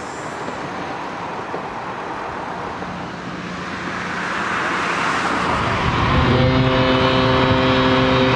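Road traffic noise that swells about four seconds in, then a long, steady horn blast that starts about six seconds in.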